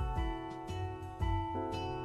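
Background music: sustained pitched notes changing every half second or so over a steady low beat.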